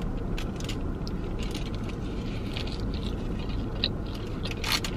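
Scattered crunches and clicks of a crispy fried birria taco being bitten and chewed, with aluminium foil crinkling, over a steady low rumble inside a car. One louder crunch comes near the end.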